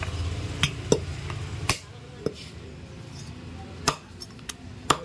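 Butcher's cleaver and tools knocking and clinking: several sharp strikes at irregular intervals.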